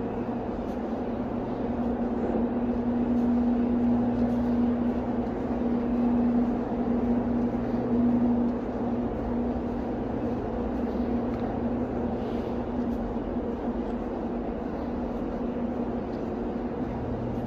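Steady mechanical drone of an underground railway station platform, with a constant low hum running through it. It swells slightly a few seconds in and eases back after about eight seconds.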